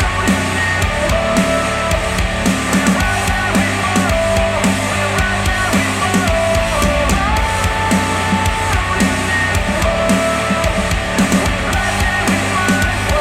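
Instrumental rock music with electric guitar and a drum kit, played back through KEF Q350 bookshelf speakers driven by a NAD C316BEE V2 integrated amplifier.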